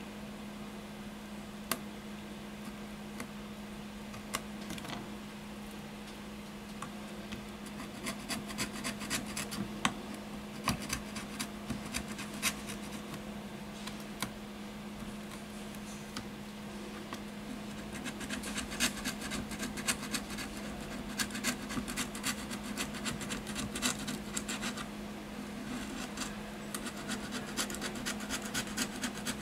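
A small metal blade scraping leftover adhesive off the edge of a tablet's frame: quick scratching strokes, busier from about a quarter of the way in and busiest in the last third. A steady low hum runs beneath.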